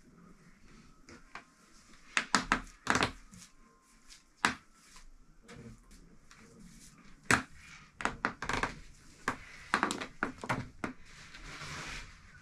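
A paintbrush being dipped and wiped in a paint tin and worked over wooden locker boards, giving irregular short knocks and scrapes.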